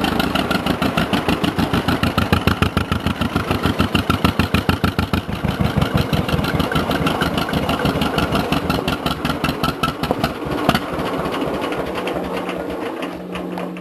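Two-cylinder John Deere tractor engine running with an even putt-putt beat. It fades and dies away near the end as it is cut off, leaving a steady low hum.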